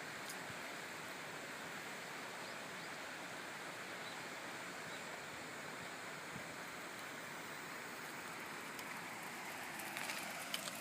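Steady background hiss with no voices, with a few faint clicks near the end.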